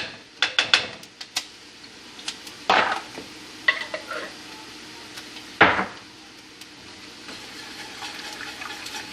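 Metal kitchen utensils clinking and knocking against a pot while sauce is mixed: a quick run of light taps near the start, then louder knocks about three and about six seconds in.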